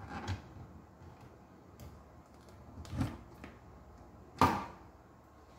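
Handling noises as a power cable and plug are picked up and moved: a few knocks and clicks, the loudest a sharp knock about four and a half seconds in.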